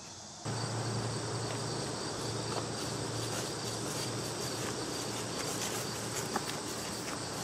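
Steady chorus of insects, a dense high-pitched buzz, over a low steady hum; it comes in suddenly about half a second in.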